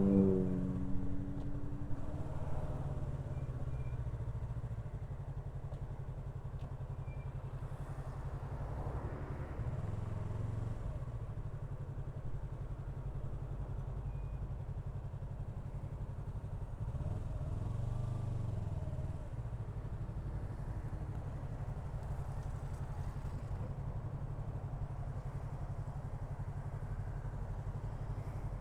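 Yamaha R3's parallel-twin engine running while being ridden, a steady low rumble mixed with wind noise, swelling and easing twice, about ten and eighteen seconds in.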